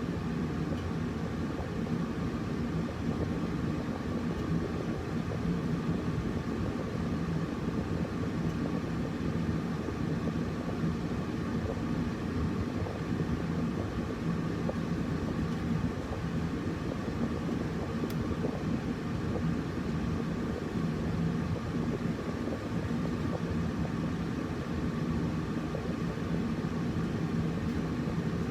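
Air conditioner running steadily: a constant low hum of fan and airflow, with a faint steady tone over it and no change in level.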